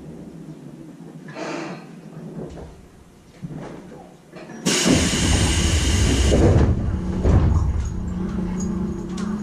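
Air-operated sliding passenger doors of a Tobu 10030-series train working at a station stop: a sudden loud blast of air hiss about halfway through, lasting about two seconds, with heavy thuds of the door leaves moving and meeting. A steady low hum sits underneath near the end.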